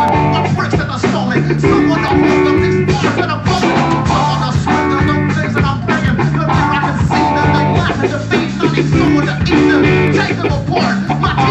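Live band music with guitar and drum kit playing a repeating riff over a steady beat.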